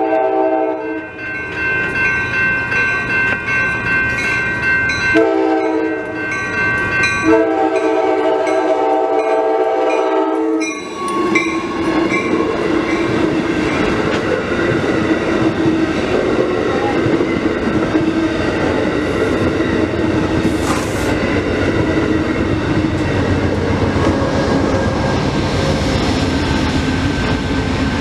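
Amtrak Downeaster passenger train sounding its multi-note horn: a blast ending about a second in, then two more long blasts close together ending about ten seconds in. The train then passes close by, with the steady drone of the diesel locomotive and the rolling noise of the wheels on the rails.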